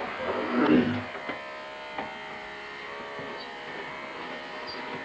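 Corded electric hair clipper buzzing steadily as it is run over the leg hair, with a brief louder rough patch under a second in and a couple of light clicks.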